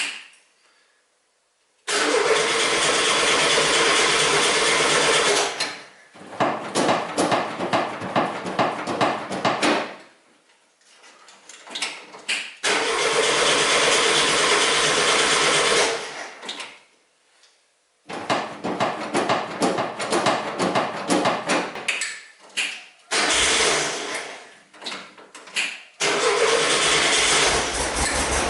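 1973 VW Bay Window campervan's air-cooled flat-four engine being started several times over, cranking and firing in spells of a few seconds with short stops between them. It is running again near the end: the first start after the ignition has been rewired.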